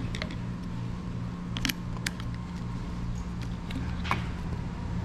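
A few sharp clicks and knocks as a plastic handlebar switch housing is handled and fitted onto a chrome motorcycle handlebar, over a steady low machine hum with an even pulse.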